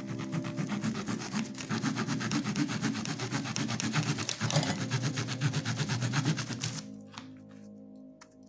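Small saw blade of a Joker multi-purpose pocketknife sawing back and forth through a thin wooden stick in rapid, steady strokes, stopping about seven seconds in.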